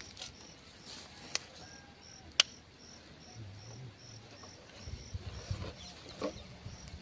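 A cricket-like insect chirping steadily, about two short high chirps a second, with a few sharp clicks and a low rumble building in the second half.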